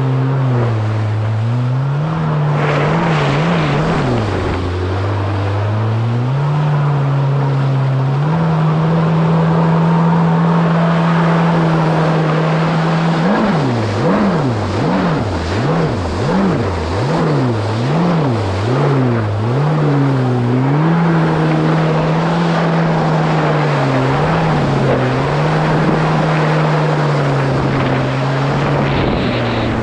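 2017 Kawasaki SX-R 1500 stand-up jet ski's four-cylinder four-stroke engine running under way, with water rushing past the hull. The revs hold high, then swing rapidly up and down about once a second for several seconds in the middle before settling again.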